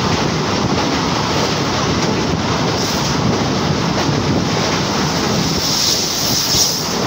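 Passenger train running at speed over a steel truss bridge, heard at an open carriage window: a steady rushing noise of wheels and rails mixed with wind on the microphone.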